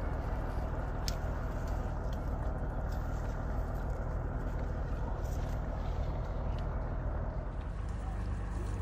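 Steady low rumbling noise, with one sharp click about a second in.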